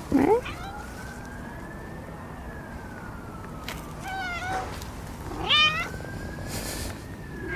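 A cat meowing three times: once at the start, then two meows close together about four and five and a half seconds in. Faintly behind it, a siren slowly rises and falls in pitch.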